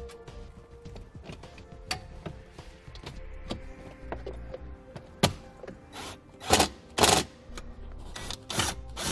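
Plastic dash trim panel being refitted: scattered sharp clicks as its switch connectors and clips snap into place, then several loud short bursts near the end as a cordless driver runs in the panel's bolts.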